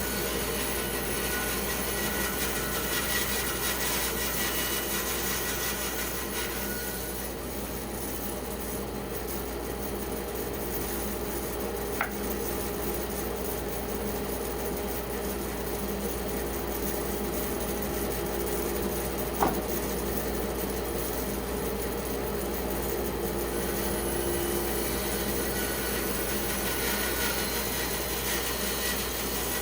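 Band saw running and cutting through a wet pecan log, a steady machine hum with cutting noise. There are two short sharp ticks, about twelve and nineteen seconds in.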